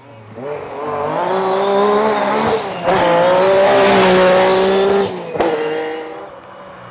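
Lancia Stratos rally car's Ferrari Dino V6 accelerating hard past, revs climbing, with a gearshift about two and a half seconds in. It then holds high revs at its loudest before lifting off with one sharp crack a little after five seconds, and the engine fades away.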